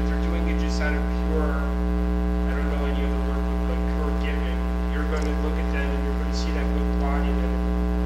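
Steady electrical mains hum, a low buzz with many overtones, on the recording. A faint, distant voice talks beneath it.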